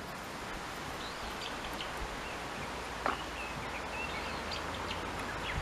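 Outdoor ambience: a steady rustling hiss with faint bird chirps scattered through, and one louder short chirp about three seconds in.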